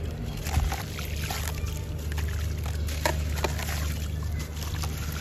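Wet sand-cement chunk crumbling in the hands: gritty crunching and crackling, with bits dropping and splashing into a tub of water. There are sharper cracks about half a second in and again around three seconds in, over a steady low hum.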